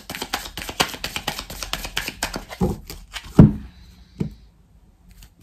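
Oracle cards being shuffled by hand: a quick run of card clicks for about two and a half seconds, then three separate taps as cards are set down, the middle one the loudest.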